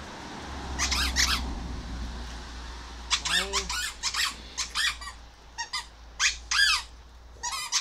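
Clusters of short, high-pitched squeaks, a few in quick succession about a second in and then again and again through the second half, over a low rumble.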